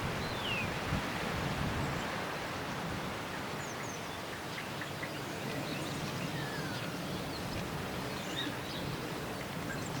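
Wind blowing in gusts, a steady rushing noise with a low rumble, while small birds chirp repeatedly over it, with a short falling call near the start and another about seven seconds in.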